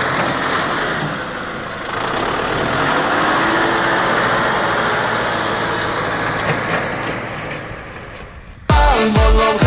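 Farm tractors' diesel engines running, a steady noisy drone that dips briefly about two seconds in. Near the end, dance music with a heavy beat cuts in suddenly.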